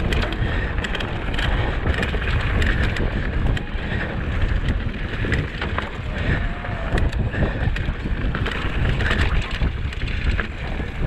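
Mountain bike riding fast over dry dirt and loose rock: wind rushing over the microphone, knobby tyres rolling on the dirt, and steady rattles and knocks from the bike over the bumps.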